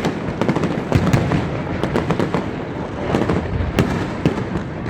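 Fireworks display: many shells bursting in rapid succession, a dense continuous crackling and popping over a deep rumble, with sharper bangs standing out every second or so.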